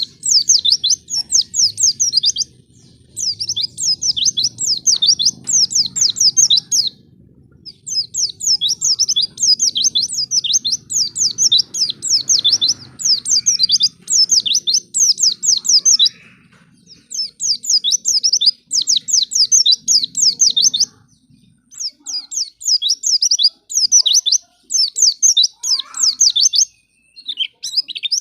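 White-eye (pleci) singing long, fast chattering phrases of quick downward-sweeping notes, each phrase a few seconds long with short pauses between, repeated over and over.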